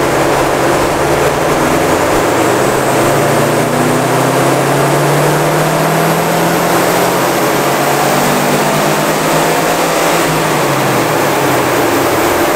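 Subaru Forester STi's turbocharged flat-four engine in a full-throttle dyno pull, under boost from a newly fitted 3-port boost solenoid. The revs climb steadily for about ten seconds, then fall away near the end as the run finishes.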